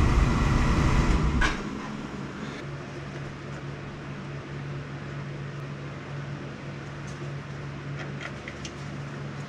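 Beckett AFG oil burner running with a loud rumble that cuts off suddenly about a second and a half in as its power switch is turned off, leaving a steady low hum. A few light clicks near the end.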